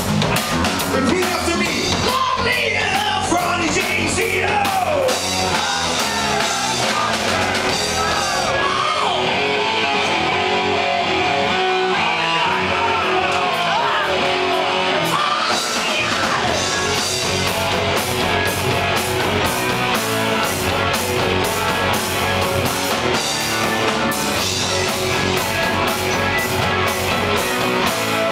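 Live heavy metal band playing: electric guitar, bass guitar and drum kit, with the lead singer's voice over them. The cymbals drop out for several seconds about nine seconds in, then come back.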